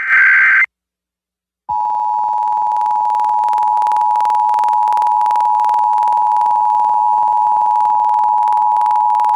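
Emergency Alert System test broadcast over the radio: the last of the SAME digital header bursts (a short burst of data warble), a pause of about a second, then the EAS two-tone attention signal, two steady pitches sounding together, starting about two seconds in and holding.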